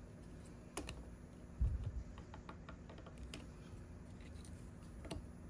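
Light, scattered clicks and taps of small 3D-printed resin model car parts being handled and pressed together, with a soft thump about one and a half seconds in.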